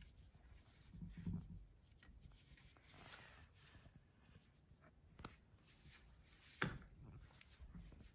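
Faint rustling and scratching of a Shih Tzu puppy's paws and claws moving on sheets of paper, with a few soft taps, the sharpest about six and a half seconds in.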